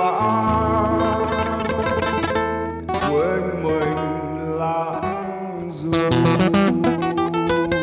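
Acoustic guitar played fingerstyle: slow held notes over a sustained bass note, then a quick run of plucked notes in the last two seconds, the closing bars of a slow ballad.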